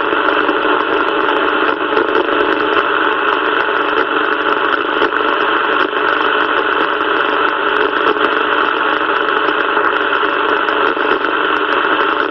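CB radio receiver hissing with static through its speaker on an open channel with no one talking: a loud, steady rush with a few faint steady tones.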